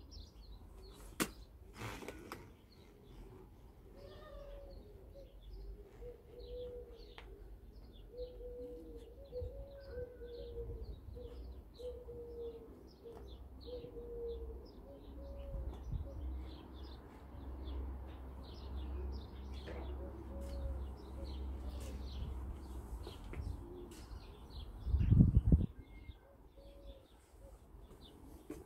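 Small birds chirping throughout, with doves cooing in repeated low notes, over a steady low background rumble. A brief loud low thump comes near the end.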